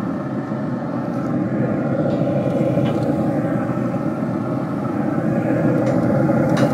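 Steady rushing hum of a Traeger Timberline pellet grill running at temperature, its fan and fire going. A few faint knocks come as slabs of spareribs are laid on the steel grates.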